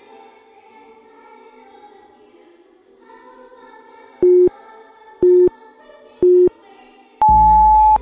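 Soft choir-like background music, then a countdown over it: three short low beeps a second apart, followed by one longer, higher beep near the end.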